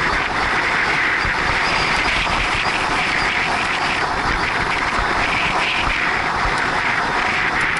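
Steady wind rushing over a bicycle-mounted action camera's microphone at about 50 km/h, a constant noise with rumble underneath.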